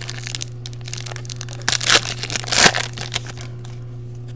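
Trading-card pack wrapper being torn open by hand, crinkling, with two louder rips near the middle before it quiets down.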